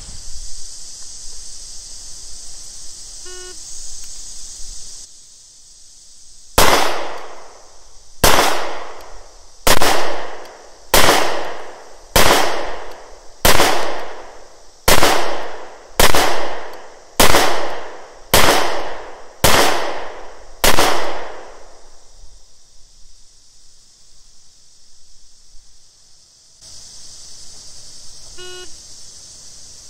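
Twelve pistol shots from a Smith & Wesson SW99 in .40 S&W, fired at a steady pace of about one every 1.3 seconds, each with a short fading tail.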